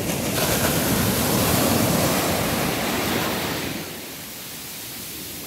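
Heavy ocean surf: a wave breaks and rushes in, its noise swelling for about three seconds, then easing to a quieter, steadier wash.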